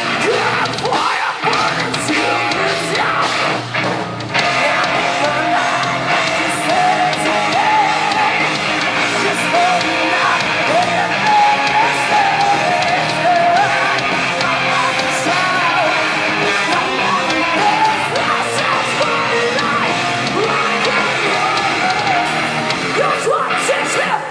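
A rock band playing live at full volume, with guitar and yelled, shouted singing over it.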